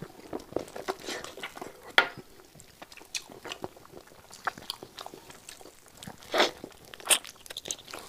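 Close-miked eating of spicy braised lamb hooves: biting, tearing and chewing with many small wet clicks and smacks. There is one sharp snap about two seconds in and a few louder short bursts near the end.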